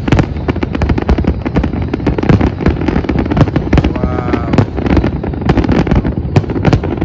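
Aerial fireworks shells bursting in a dense, unbroken barrage of bangs and crackles, many a second, over a constant low rumble.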